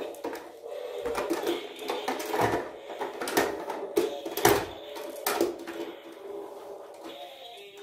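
Small plastic toys clicking and clattering as they are handled, a run of irregular sharp clicks and knocks, busiest in the first few seconds.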